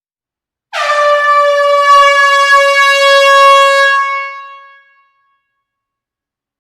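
Air horn sounding one long blast in an enclosed hall: a single steady note that dips slightly in pitch as it starts, holds for about three seconds, then fades out over about a second.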